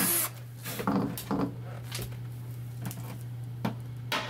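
A power drill boring into a plastic diesel container cuts off just after the start. Then come a few scattered light knocks and rubs as hands handle the hollow plastic container and a small fitting, over a faint steady low hum.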